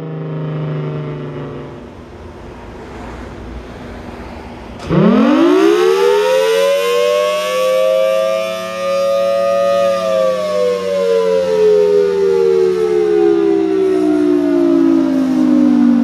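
Federal Signal Thunderbolt 1000T rotating civil defense siren during a test: it is winding down at first, then about five seconds in it abruptly starts up again, rising fast in pitch to a loud wail that holds until about ten seconds in and then slowly falls in pitch.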